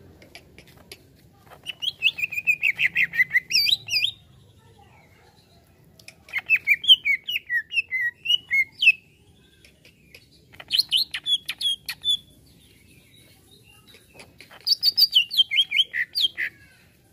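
Green leafbird (cucak ijo) singing in four bursts of quick, rapidly repeated chirping notes, each burst lasting about two to three seconds, with short pauses between.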